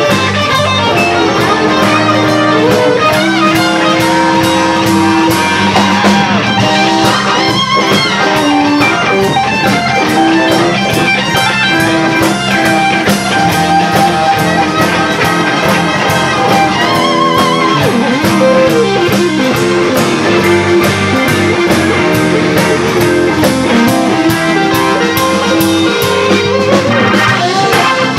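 Live blues band playing an instrumental passage: Stratocaster-style electric guitars leading over drums, with long held notes that waver in pitch.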